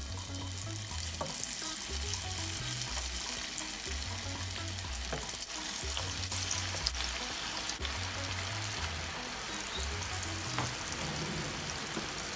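Cassava dough balls (agbeli kaklo) deep-frying in a pan of hot oil: a steady sizzle with occasional small crackles.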